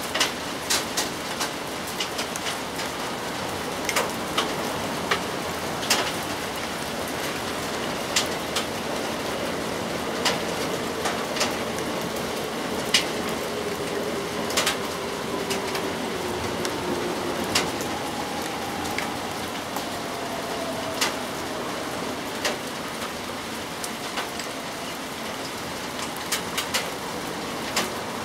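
Steady rain falling, with large drops landing nearby in sharp, irregular taps.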